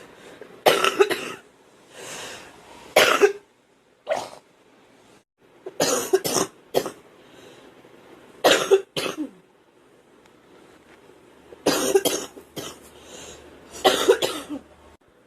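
A girl coughing in repeated fits: short clusters of one to three harsh coughs every two to three seconds, with brief pauses between.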